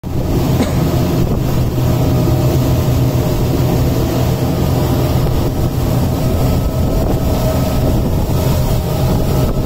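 Speedboat's twin Honda outboard motors running steadily under way, a constant engine hum under the rush of wind and water along the hull.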